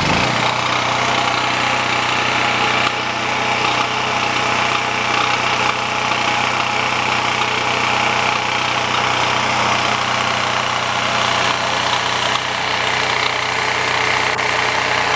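DuroMax 4850 portable generator's 7 HP single-cylinder engine running steadily. It has just been key-started warm, with the choke off.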